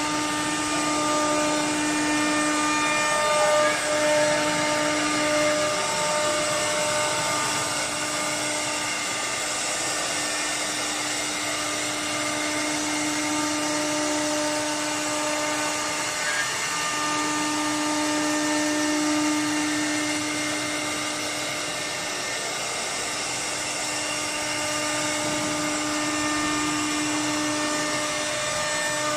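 The high-speed spindle motor of a 5-axis CNC router running as its bit carves a wooden workpiece: a steady whine that dips and wavers briefly a few times.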